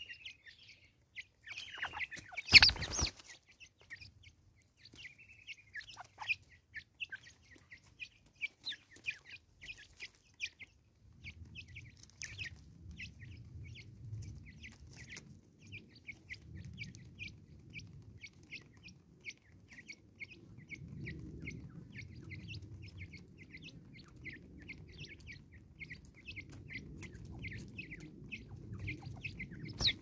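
Natal spurfowl pecking seed off a wooden tree stump, a steady patter of quick beak taps, with soft low clucking from the birds starting about a third of the way in. One loud sharp burst comes a couple of seconds in.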